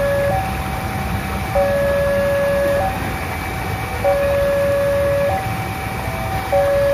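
Railway level-crossing warning alarm sounding: an electronic signal alternating between a lower and a higher tone about every second and a quarter, warning of an approaching train. A steady low rumble runs underneath.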